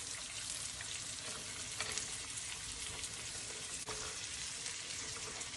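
Split chickpeas, chilies, curry leaves, garlic and boiled black grams sizzling steadily in hot oil in a pan, with a couple of faint clicks of the stirring spoon about two and four seconds in.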